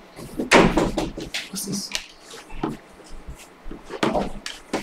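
Scattered knocks and rustles of objects being handled and set down on a desk, the loudest about half a second in and again near four seconds.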